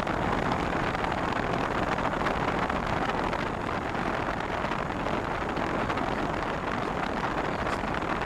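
York 13 SEER heat pump outdoor unit running in cooling, a steady rush of air from its condenser fan over the hum of the compressor.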